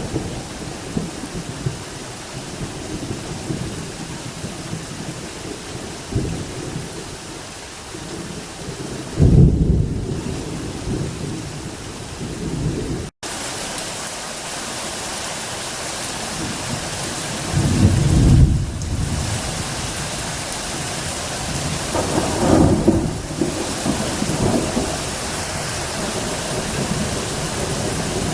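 Heavy rain falling steadily in a thunderstorm, with deep rolls of thunder rumbling about a third of the way in, around two-thirds in and again shortly after. The sound cuts out for an instant about halfway, and the rain hiss is stronger after that.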